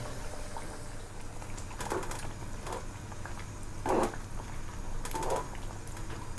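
Pot of thick panang curry simmering, with a few soft plops about two, three, four and five seconds in, the loudest about four seconds in, over a steady low hum.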